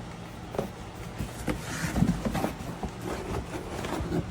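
Paper and cardboard rustling and scraping as a large paper block is worked out of a cardboard box, with scattered light knocks; the handling is busiest about two seconds in.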